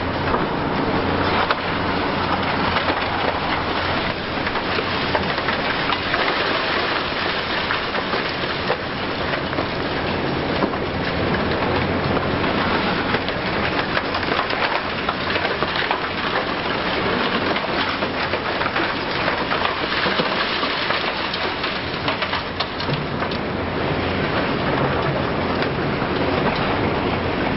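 High-reach demolition: a dense, continuous crackle and clatter of concrete being crushed and rubble falling, with the Hitachi Zaxis 870 excavator's diesel engine humming low underneath.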